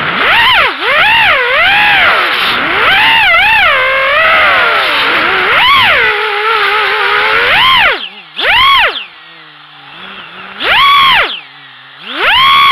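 Racing quadcopter's KingKong 2205 2300kv brushless motors and propellers whining, the pitch rising and falling with the throttle. After about eight seconds they drop to a low hum, broken by three short throttle bursts.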